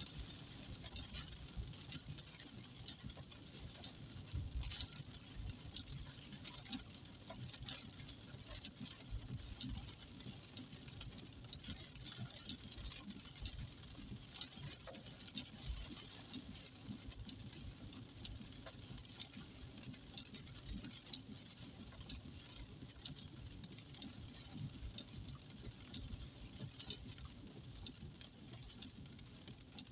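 Rain pattering on a car's windshield and roof in a storm, heard from inside the cabin as a dense scatter of small irregular ticks over a steady low rumble from the moving car.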